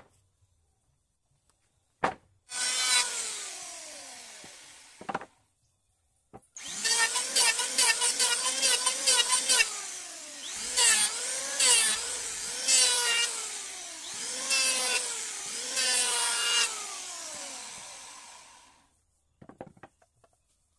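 Handheld electric power tool cutting into curved teak pieces. Its motor runs briefly and winds down, then runs for about twelve seconds, its pitch dipping and recovering repeatedly as it bites into the wood, before winding down again.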